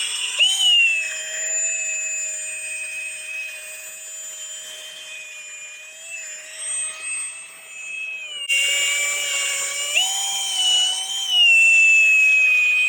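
Electric drill spinning a foam polishing pad on a plastic headlight lens, its motor whining steadily. The pitch jumps up as the trigger is squeezed about half a second in, dips lower for a stretch around eight and a half seconds in, then rises again about ten seconds in.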